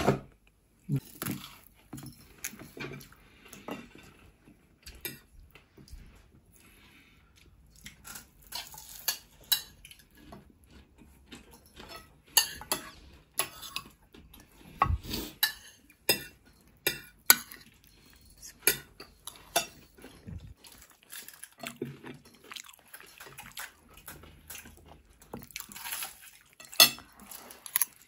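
Cutlery and plates clinking and scraping as people eat: many short, irregular clicks and taps, with a brief lull about six seconds in.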